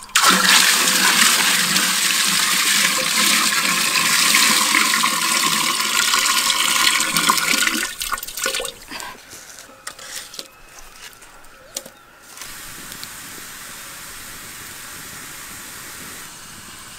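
Water pouring in a steady stream into a clay pot part-full of water, splashing over an egg sitting in it. The pour stops about eight seconds in, leaving a few small splashes and drips, then a quieter steady hiss.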